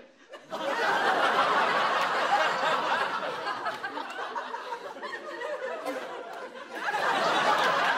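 Audience laughing. The laughter breaks out about half a second in, dies down somewhat past the middle, then swells again near the end.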